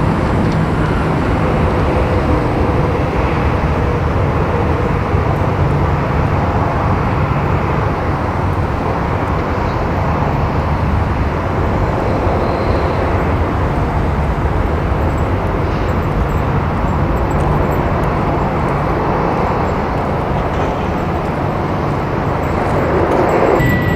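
Steady, loud vehicle noise: a continuous rumble with a low engine hum under it.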